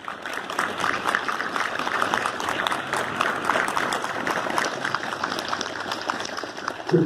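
Crowd applauding: many hands clapping at a steady level, following the unveiling and dedication of a monument.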